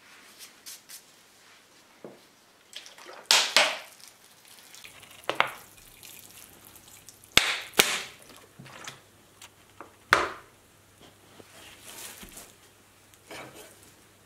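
Water sprinkled by hand onto potting soil in a plant pot: a series of short splashes and patters, the loudest about three, seven and a half and ten seconds in.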